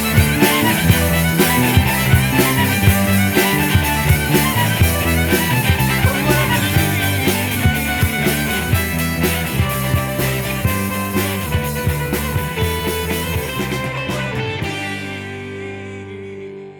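Background rock music with a steady drum beat and no singing, fading out near the end.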